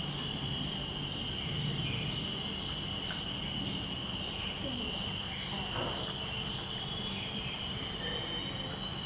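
Insects calling: a steady high-pitched drone, with a pulsing call repeating two or three times a second over it that stops near the end.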